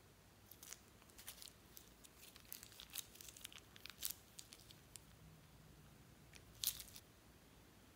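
Plastic piping bag crinkling and crackling as it is squeezed and handled, in a scatter of short sharp rustles, the loudest one near the end.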